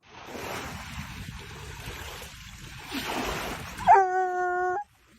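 A steady rushing hiss, then near the end a dog gives one whining howl held on a single pitch for about a second, which cuts off abruptly.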